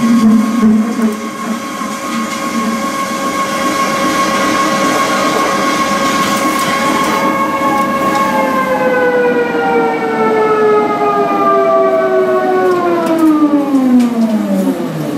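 Copier 16 CB pipe severing and beveling machine running as it machines a steel pipe: a loud whine of several pitches that holds steady, then from about eight seconds in slides downward, dropping faster near the end as the machine slows.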